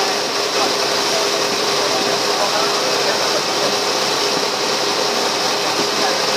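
Passenger ferry's engine running steadily, a constant hum under an even rushing noise of wind and water, with indistinct voices in the background.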